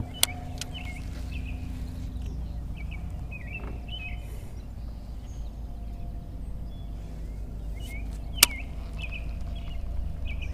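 Small birds chirping in short, repeated calls over a steady low rumble, with two sharp clicks, one just after the start and one about eight seconds in.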